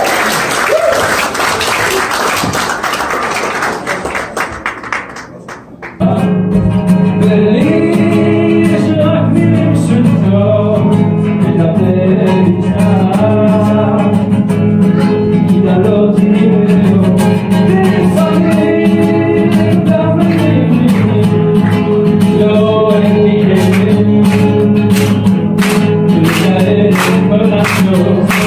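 Applause dying away, then an abrupt cut about six seconds in to a man singing with acoustic guitar accompaniment. Rhythmic hand-clapping joins near the end.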